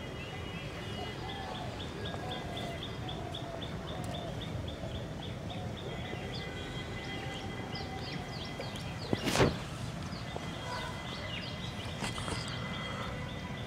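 Small birds chirping, one giving a fast run of short repeated chirps at about four a second, others with quick falling notes, over a steady low outdoor rumble. A single sharp knock stands out about nine seconds in.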